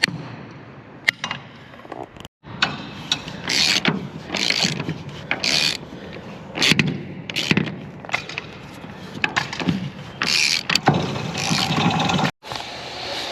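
Mechanical rattling and clicking in a run of short, irregular bursts, broken by two sudden cuts.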